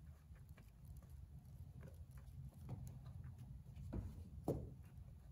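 Faint rustling and light tapping of hands pressing a rubber weatherstrip seal onto the edge of a fiberglass car hood, with two soft knocks about four seconds in, over a low steady hum.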